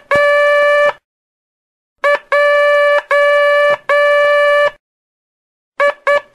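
Morse code (CW) practice tone, a buzzy pitched note keyed in dots and dashes: the final dash of Q, then J (one dot and three dashes), then the quick dots of H starting near the end.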